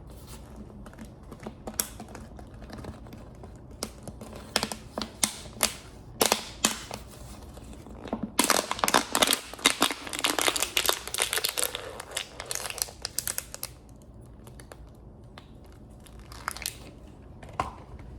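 Close-miked eating sounds from a fast-food chicken meal: scattered crunches and clicks, with a dense run of crackling crunches between about 8 and 13 seconds in.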